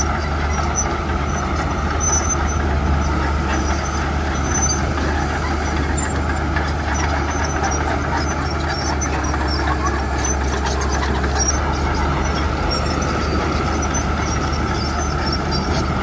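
Komatsu bulldozer's diesel engine running steadily under load as the blade pushes a pile of gravel, a constant low hum with no breaks.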